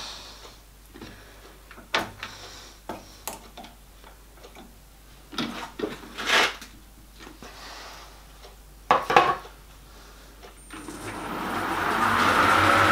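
Scattered metal clicks and knocks as tooling is set up on a small metal lathe. About eleven seconds in, the lathe motor starts and the four-jaw chuck spins up to a steady running hum with a thin high whine, turning a rod against a dial test indicator to check it runs concentric.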